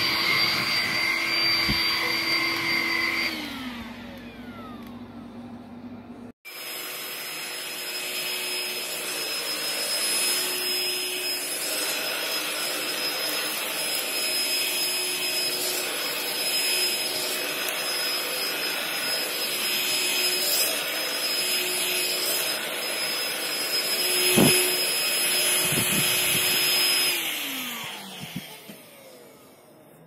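Kenmore DS4020 cordless stick vacuum's motor running with a steady high whine. It winds down with a falling pitch about three seconds in, then runs again while pushed over carpet. A sharp knock sounds about 24 seconds in, and the motor winds down again near the end.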